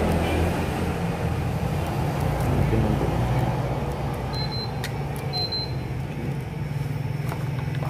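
A motor vehicle engine running steadily with a low hum. A few light clicks come from handling the camera's small bagged parts and box.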